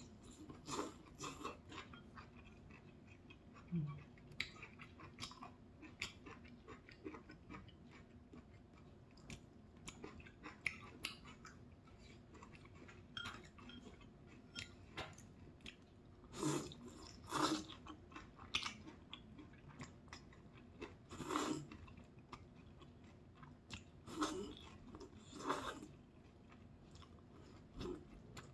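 Close-miked wet chewing and lip smacking of soft udon noodles and egg-battered jeon in a spicy kimchi broth. A few louder slurps of noodles come in the second half.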